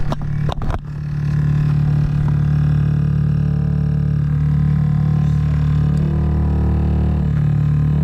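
Water pipes droning in a loud, steady low hum with overtones, after a few knocks at the start. This is water hammer: water pulsing through a slightly cracked-open or clogged valve and shaking the pipes, which he thinks is on the cold water supply.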